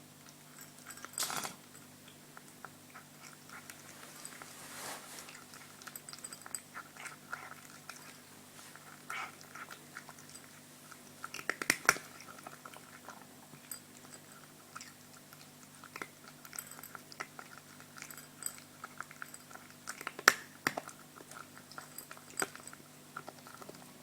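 A cat chewing and eating its food, a run of small irregular crunching clicks with a few louder bites.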